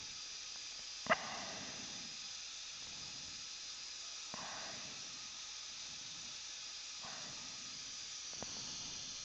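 Steady faint hiss in a dental operatory, with a sharp click about a second in and two softer taps later, as small instruments work at threading a screw into the implant.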